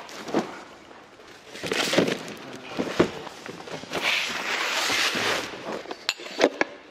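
Cardboard cartons rustling and knocking as they are carried, set down and opened, with a few sharp clicks near the end and some footsteps.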